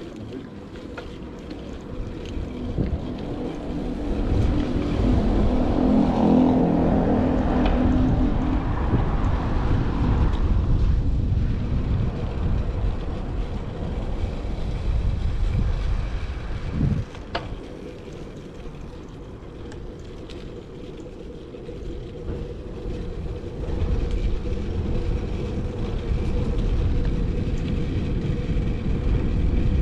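Street traffic and wind rumble on a chest-mounted action camera while riding a road bike through city streets. A motor vehicle grows louder and passes about four to eleven seconds in, and there is a single knock about seventeen seconds in.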